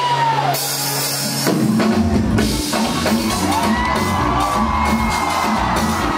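Live band music from a concert stage, loud over the hall's sound system, with a drum kit; a cymbal wash comes in about half a second in, and the full band enters with a steady beat about a second and a half in.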